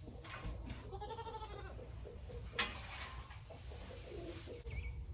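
A goat bleating once, a wavering call about a second in, followed by a single sharp knock.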